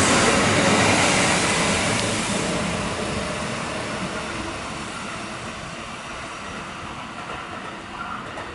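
Kintetsu electric train running along the station platform, its noise fading steadily as it moves away.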